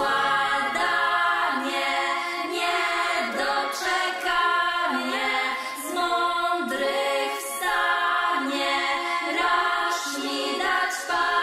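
Music: layered voices singing held and gliding notes, with no bass or drums underneath.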